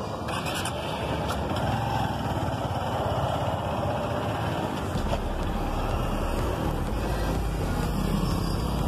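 A vehicle travelling along a cobblestone street: steady engine and tyre rumble, with the low rumble growing stronger about halfway through.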